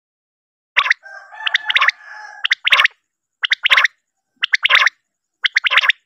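Male common quail calling: short, sharp phrases of two or three quick notes, repeated about once a second. From about one to two and a half seconds in, a lower, drawn-out call sounds under the phrases.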